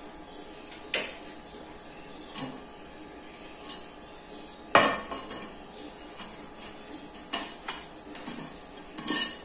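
Glass serving plate and aluminium tube pan knocking and clinking together as the plate is set on the pan and the pan is turned over to unmould the dessert. A few sharp knocks with brief ringing, the loudest about five seconds in.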